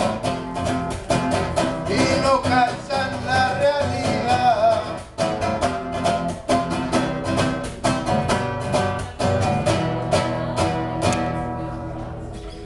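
Acoustic guitar strummed in a steady rhythm, with a voice singing along over the first few seconds. The playing dies away near the end as the song closes.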